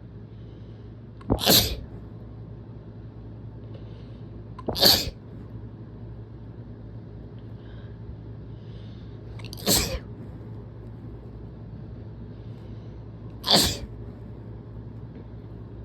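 A person sneezing hard four times, a few seconds apart. The sneezes were induced while sick.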